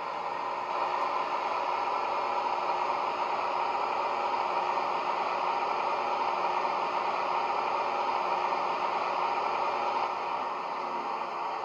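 Digital (DCC) sound of a Class 68 diesel locomotive, a JMC sound file imitating its Caterpillar V16 engine and traction motors, played through a small EM1 speaker inside a model loco. It runs steadily as the model draws to a stand, and eases down a little about ten seconds in.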